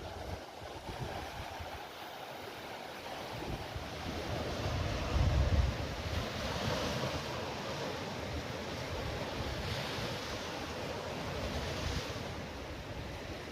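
Sea waves washing onto the shore in swells that rise and fall every few seconds, with wind buffeting the microphone in a low rumble about five seconds in.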